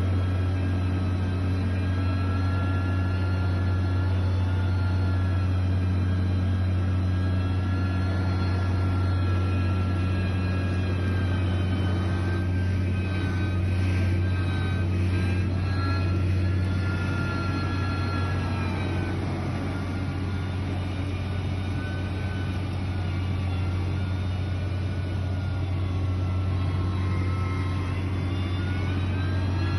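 Heavy construction machinery running steadily, a low engine drone with a whine that slowly rises and falls.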